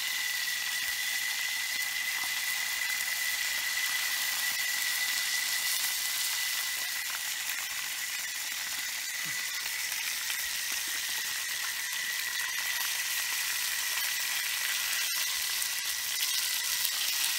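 Fish frying in hot oil in a frying pan, sizzling steadily.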